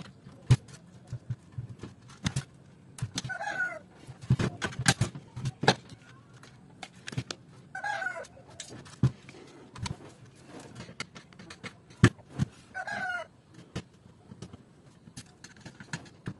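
Clicks and knocks of ribbon cables, connectors and tools being handled on an opened DVD player's stamped-steel chassis. A short animal call, a cat or a hen, sounds three times, about every four to five seconds.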